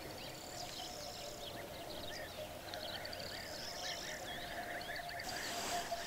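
Background chorus of many small birds chirping and twittering in overlapping short calls, over a steady faint tone, with a brief rush of hiss near the end.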